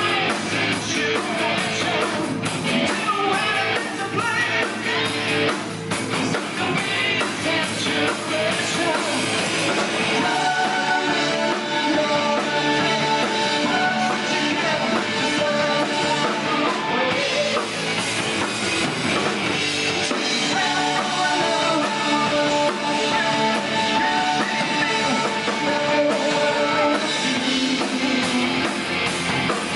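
A live rock band playing: electric guitar, bass guitar and drums, with singing.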